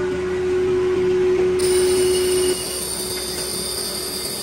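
A steady machine hum with one strong tone gives way to the high, steady whine of a grinding wheel working a cast cylinder sleeve under coolant. The whine sets in about a second and a half in, and the hum drops away about a second later.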